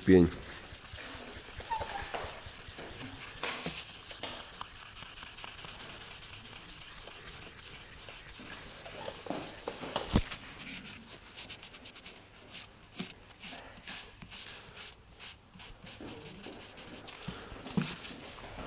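Fine abrasive sanding pad rubbing back and forth by hand over car clear coat, a run of short hissing strokes. This is the flattening of dust nibs in fresh lacquer before polishing. There is a thump at the very start and a sharp click about ten seconds in.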